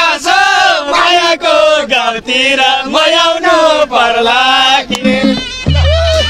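A man singing loudly close to a microphone, a chant-like melody in long phrases with short breaks. Near the end, traditional band music comes in with a steady low drone.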